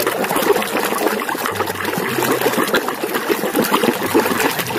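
Running water splashing steadily over a muddy toy excavator as the mud is washed off.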